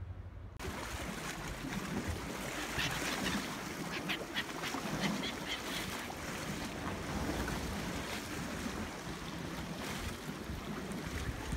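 Wind noise on the microphone over choppy lake water, with gulls calling in short cries, most of them between about three and five seconds in.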